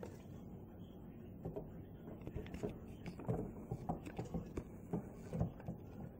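Crows tapping on a skylight and roof, heard from the room below as a run of irregular, muffled knocks.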